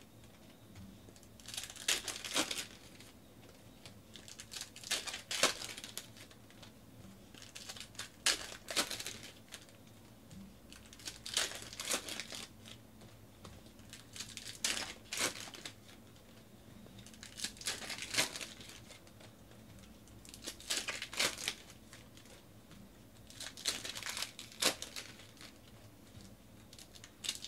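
Basketball trading cards and their foil pack wrapper being handled by hand: short papery rustles and crinkles about every three seconds as cards are slid and shuffled.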